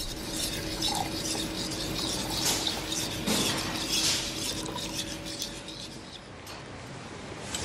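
Kitchen clatter of cutlery and dishes being handled and stirred, many small clinks over a steady low hum that stops about six seconds in.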